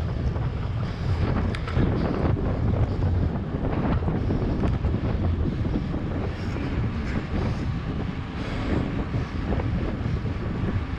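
Wind buffeting the microphone of a camera on a moving bicycle: a steady low rumble with hiss.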